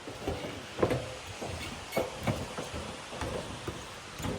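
Footsteps knocking on wooden stairs: irregular thuds about every half second.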